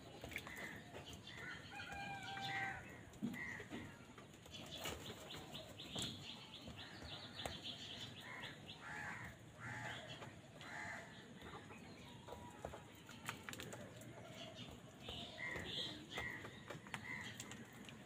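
A flock of house crows feeding together, giving short, faint caws now and then, with wing flaps as they hop about. A quick run of ticking notes comes about five seconds in.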